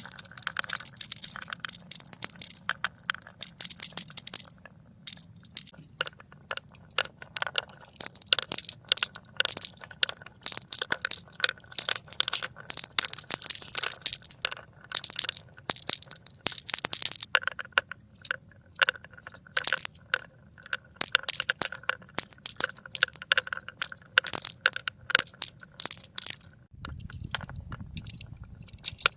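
Marbles rolling and clattering down a marble run track: a rapid, irregular stream of small clicks and clacks over a faint rolling hum. Near the end a lower rumble comes in under the clicking.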